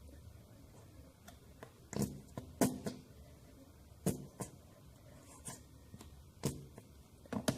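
A spoon and plastic containers being handled as body lotion is spooned out, giving about five sharp clicks and knocks a second or two apart.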